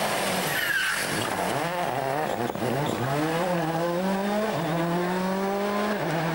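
A World Rally Car's turbocharged four-cylinder engine accelerating hard, its pitch climbing and dropping back at each upshift, with a brief tyre squeal about a second in.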